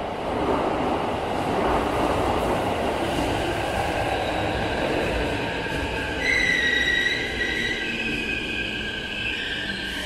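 Keikyu N1000 series train pulling into an underground platform: a rush of running noise from wheels and motors. About six seconds in a high steady squeal sets in as it slows to a stop.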